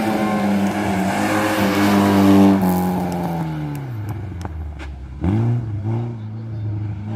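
Race car engine held at high revs, then the revs fall away with a few sharp clicks. About five seconds in the engine picks up sharply and the revs climb and dip again, as the car brakes into a slalom chicane and accelerates out of it.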